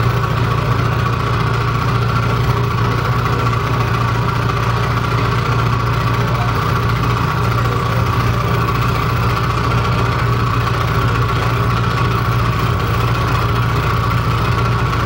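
Live electronic noise music: a loud, steady, unbroken drone with a heavy low hum and a harsh buzzing tone higher up, over a dense haze of noise.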